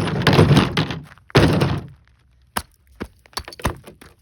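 A car flipping onto a pair of eyeglasses: a noisy crash of impacts that dies away after about a second, a second short crash, then five or six sharp small clicks, each on its own.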